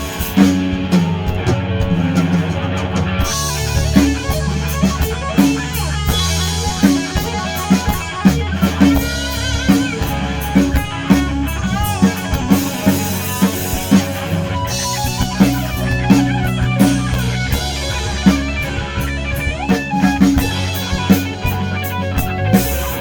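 Rock band playing an instrumental break: guitar over bass and a drum kit keeping a steady beat.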